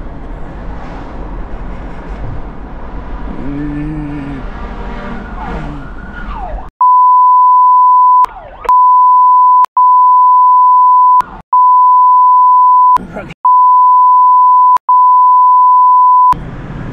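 Emergency-vehicle siren sweeping, along with engine and road noise inside a fire engine's cab and a short low horn blast about three and a half seconds in. From about seven seconds on, a loud steady censor-bleep tone sounds in long stretches broken by short gaps, covering spoken words.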